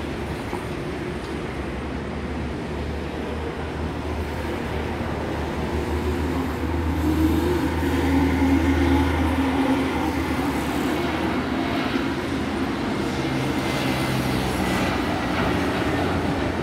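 Airbus A320neo jet engines on final approach: a rumble with a faint high whine that grows louder from about halfway through as the airliner nears. Under it runs a steady low hum that stops about nine seconds in.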